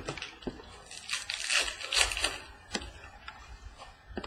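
Trading cards being handled and slid against one another, rustling and scraping, with a few sharp clicks.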